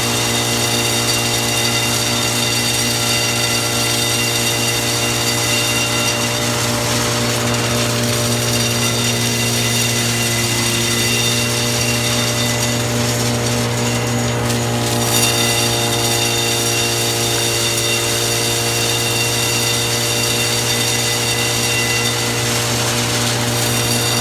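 Gravel-evacuating excavation machine running steadily: a continuous mechanical drone with a strong low hum and a high whine over it, and a single brief knock about fifteen seconds in.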